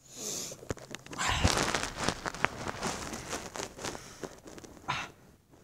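Rustling of fabric and bedding with many small knocks and clicks: handling noise as the phone is moved about against clothes and blanket.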